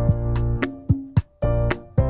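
Background music: a bright keyboard tune over a bass line, with a regular beat of percussive strokes about twice a second.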